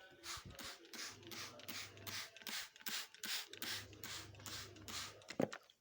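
A cleaning cloth wiping a hard surface in quick back-and-forth strokes, about three a second. A low hum comes and goes underneath.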